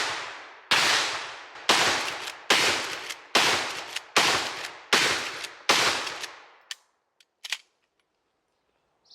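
Gunshots fired one at a time in a steady string, eight shots a little under a second apart, each sharp crack ringing out and dying away. After the last shot come a few faint clicks, then quiet.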